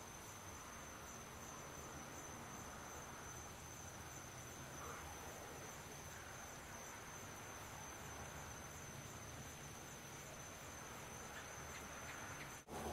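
Crickets trilling steadily at night, one continuous high-pitched chirr over faint background hiss. The sound drops out for a split second near the end.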